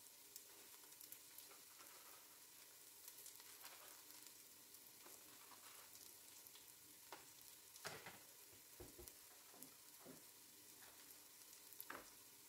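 Faint sizzle of sliced onions and whole spices frying in oil in a pot, with a few light clicks now and then.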